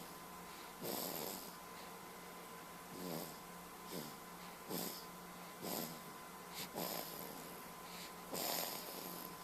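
Snoring: short, noisy breaths about once a second, unevenly spaced, the loudest near the end.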